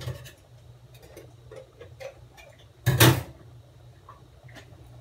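Scattered light clicks and knocks of cookware being handled, with one louder clatter about three seconds in, over a low steady hum.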